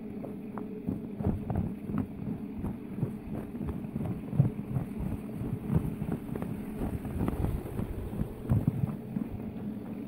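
Footsteps crunching and thudding through snow across a snow-covered wooden footbridge, an irregular few steps a second, with wind rumbling on the microphone.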